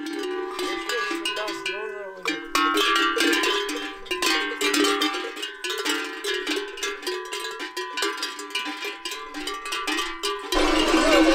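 Bells clanking and jingling in a dense, irregular stream over sustained low tones. Near the end it gives way abruptly to a louder, fuller sound.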